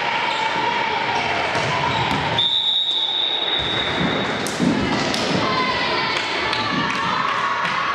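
Volleyball players' voices shouting and calling in a sports hall, with a referee's whistle blown once, a steady high note held for about two seconds a little before midway, and a few ball thuds.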